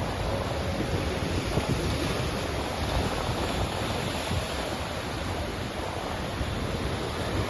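Sea surf washing on the shore: a steady, unbroken rush of waves.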